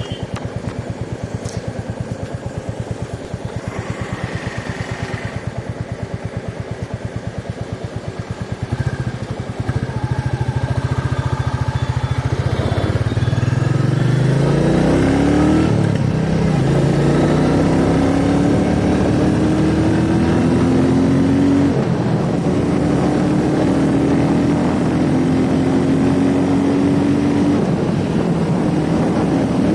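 Halcyon motorcycle engine on its stock exhaust, idling with an even pulsing beat, then getting louder about a third of the way in and pulling away, its pitch climbing and dropping back repeatedly as it accelerates through the gears.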